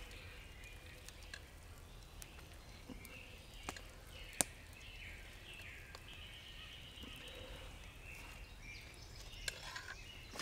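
A plastic spoon scraping and tapping faintly against a stainless steel camp pot as scrambled eggs are scooped out, with one sharper tap near the middle.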